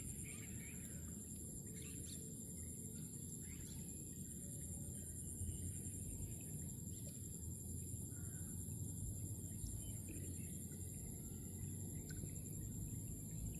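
Rural outdoor ambience: a steady, high insect chorus over a low rumble of wind, with a few faint bird calls scattered through.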